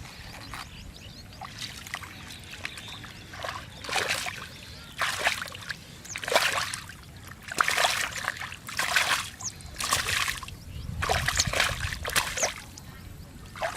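Muddy water splashing and sloshing as it is worked by hand while groping for catfish: quiet at first, then repeated irregular splashes about once a second.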